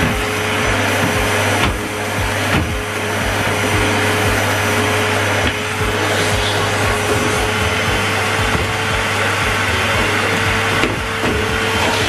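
Numatic Henry canister vacuum cleaner running steadily while vacuuming carpet. A constant motor whine sits over the rush of air.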